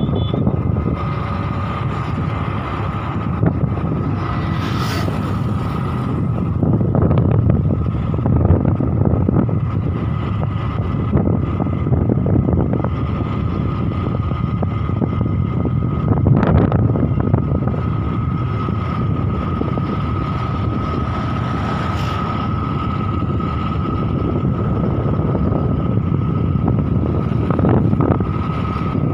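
Wind buffeting the microphone of a moving vehicle, over a steady low rumble of the vehicle and its tyres on the road, with a thin steady whine.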